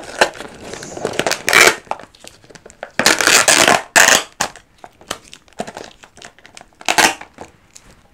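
Plastic wrapping crinkling and tearing as an ice cup is cut open with a knife, in irregular bursts, loudest a few seconds in.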